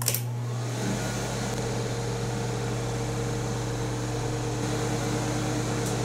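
1975 Amana Radarange RR-6W microwave oven running: a steady hum over an even rush of air noise, with a deeper hum joining about a second in.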